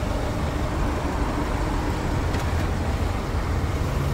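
Steady low rumble of a vehicle engine at idle.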